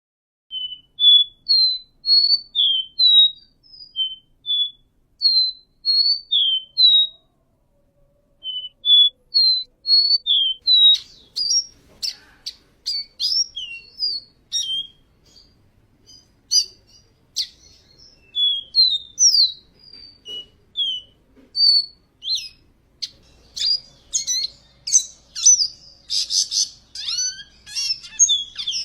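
Caboclinho, a small Sporophila seedeater, singing high, clear whistled notes that sweep up and down in quick phrases. After a short pause the song turns faster and denser, with sharp clicks among the notes, and is busiest near the end.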